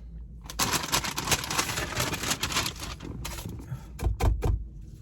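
Crinkling and rustling of a takeout paper bag or wrapper being handled, followed by a few dull thumps about four seconds in.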